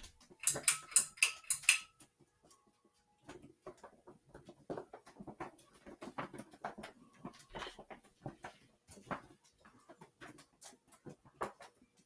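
A small flag held into a spinning ceiling fan, slapping against the blades in a loud rapid clatter during the first two seconds or so, followed by fainter, irregular flapping clicks.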